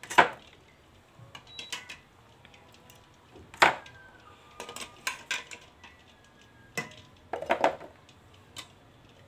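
Metal kitchen tongs clicking and clacking against hard-boiled eggs and the pot as the eggs are lifted out and set down: a series of sharp, separate clicks, the loudest about three and a half seconds in.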